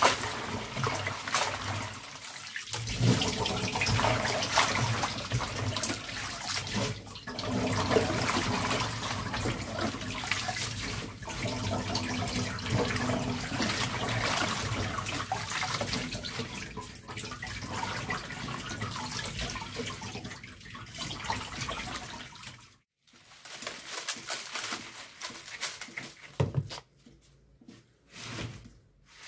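Cut napa and young cabbage leaves being swished and washed by gloved hands in a plastic basin of water: continuous sloshing and splashing. It cuts off abruptly about 23 seconds in, and quieter, scattered sounds follow.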